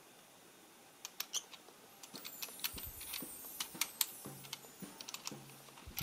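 Irregular small clicks and taps of fingers and fingernails handling a compact metal-cased Bluetooth amplifier and its gold-plated speaker binding posts. They start about a second in and grow busier.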